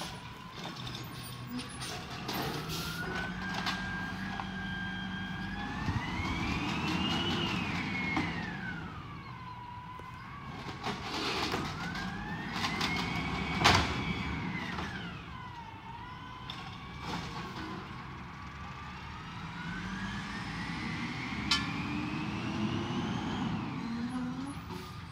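Peterbilt 320 garbage truck with an automated side-loading arm: the engine revs up and down with a rising and falling hydraulic whine three times as the arm lifts and dumps green-waste carts. A sharp bang about halfway through, likely the cart knocking against the hopper.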